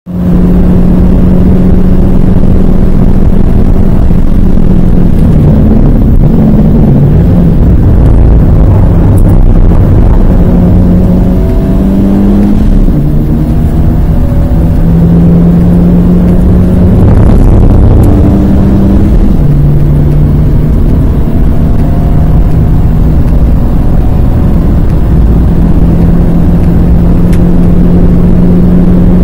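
Renault Twingo 1.2-litre four-cylinder engine running hard at high revs, heard from inside the cabin over heavy road and tyre noise. Its note steps down in pitch twice in the middle as the car shifts up while accelerating out of a slow corner.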